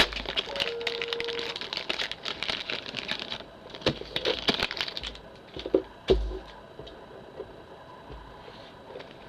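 Foil wrapper of a Pokémon booster pack crinkling and tearing as it is opened by hand. Dense crackle for about three and a half seconds, a second shorter burst, then a few light knocks as the contents are handled.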